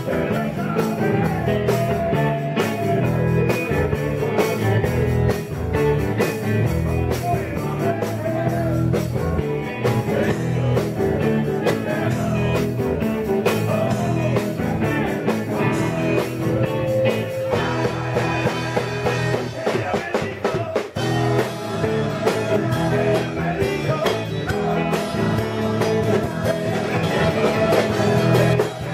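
Rock band playing blues-rock through a large PA system, with electric guitar and singing.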